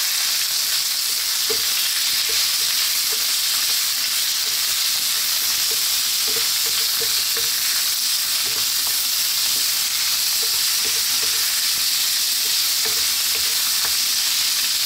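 Cubed pork belly sautéing in hot oil in a wok with onion, garlic and ginger: a steady sizzle, with light, irregular knocks of a wooden spatula against the pan as it is stirred.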